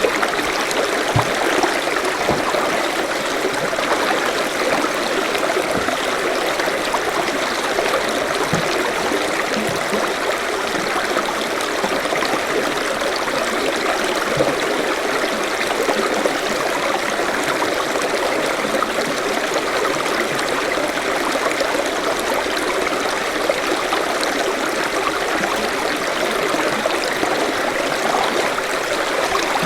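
Forest stream flowing: a steady, unbroken rush of running water.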